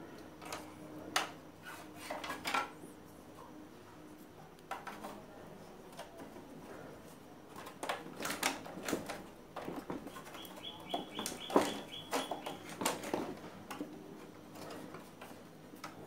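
Irregular clicks, clinks and knocks as the main circuit board and plastic chassis of a CRT television are handled and moved, with a quick run of small ticks about ten seconds in. A faint steady hum runs underneath.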